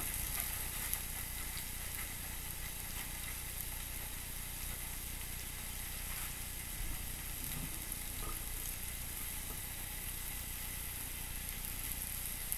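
Marinated steaks sizzling steadily on a hot cast iron grill pan.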